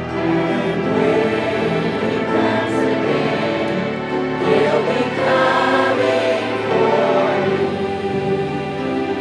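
Church choir singing a gospel song, several voices holding sustained notes together.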